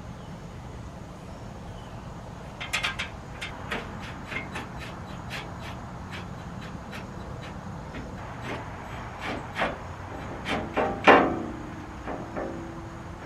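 Irregular light clicks and knocks of metal parts and hand tools being handled and set in place, a few a second, the loudest knock about eleven seconds in followed by a short ring.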